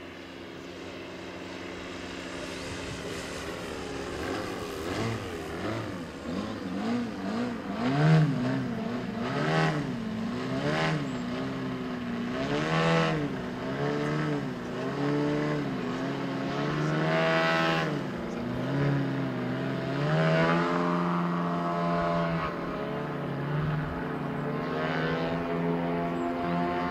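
Propeller-driven four-cylinder petrol engine of a large-scale radio-controlled Extra 300 LX aerobatic model in flight. The drone grows louder over the first few seconds, and its pitch wavers up and down again and again through the middle as the plane manoeuvres, then steadies near the end.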